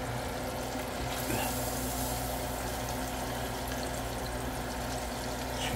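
Battered catfish pieces frying in a small pot of hot oil: a steady sizzle and bubbling, with a steady low hum underneath.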